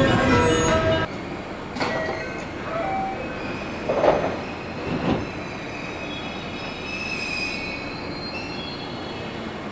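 Electric train moving slowly through a station platform, its steel wheels squealing in thin high tones. It is louder for the first second, then eases off, with a few brief knocks about two, four and five seconds in.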